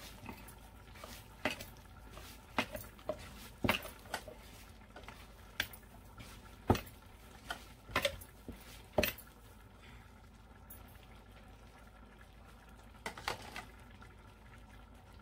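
A plastic measuring cup and mixing bowl being handled, giving a dozen or so irregular sharp knocks and clacks, with a quiet stretch in the last third.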